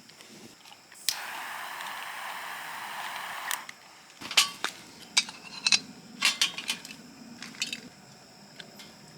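A steady hiss that starts suddenly about a second in and stops about two and a half seconds later. It is followed by a run of light, irregular clinks and taps of metal utensils and cookware.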